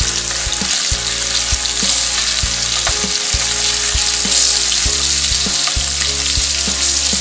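Oil sardines shallow-frying in hot oil in a nonstick pan, a steady crackling sizzle. Scattered sharp clicks come from the metal spatula and fork as the pieces are turned over.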